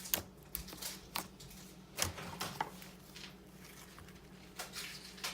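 Slime being squished and stretched by hand, giving irregular wet clicks and pops, the strongest about two seconds in.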